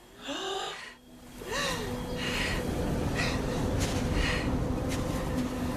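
A woman gasping and breathing heavily, short hard breaths about once a second after a couple of brief voiced moans, over a steady low hum.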